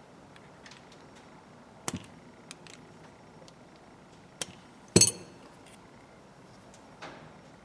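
Small metal hand tools and ratchet parts knocking and clinking. There are about five separate sharp taps, the loudest about five seconds in with a brief metallic ring.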